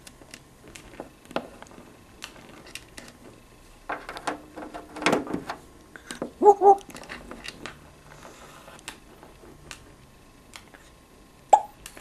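African grey parrot clicking and tapping its beak on a wooden perch, with a scraping rustle about four to five seconds in. Twice it gives a short hiccup-like chirp, once around the middle and once near the end.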